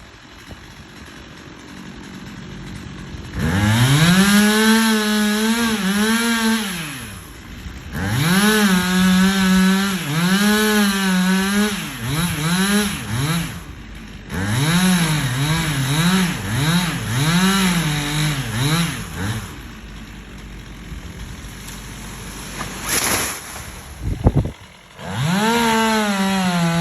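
Stihl MS 362 two-stroke chainsaw cutting into a palm trunk in several long full-throttle bursts, its pitch repeatedly sagging under load and recovering, and dropping back to a low idle between bursts. A single heavy thud comes near the end.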